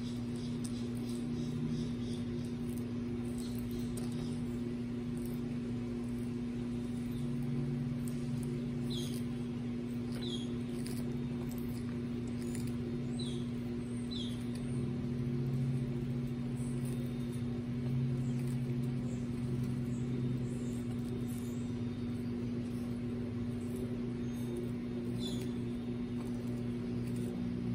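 Baby Aldabra giant tortoises munching crisp lettuce leaves, a soft irregular patter of small bites and crunches, over a steady low mechanical hum. A few short high chirps come and go.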